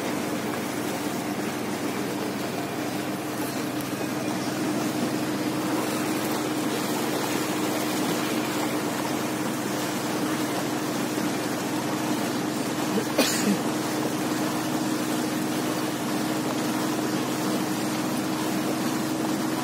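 A small motorboat's engine running steadily, a constant drone, with water and wind rushing past the hull. There is a short knock about two-thirds of the way through.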